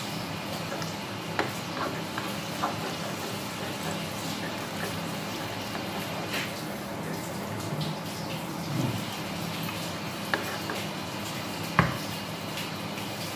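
Stir-fried vegetables sizzling in a wok as a spatula stirs and scrapes them, with several sharp clicks of the spatula against the pan, the loudest near the end. About halfway through, a flour-and-water thickener is poured in.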